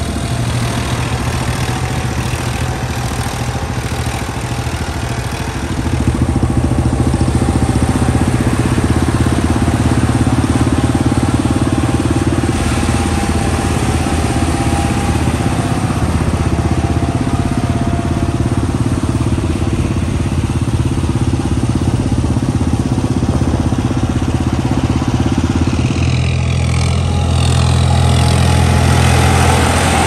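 Swaraj 963 FE tractor's diesel engine running steadily as the tractor drives on a road, getting louder about six seconds in.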